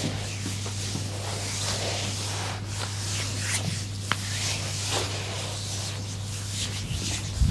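Soft rubbing and swishing of hands working over skin, with a few light clicks, over a steady low electrical hum.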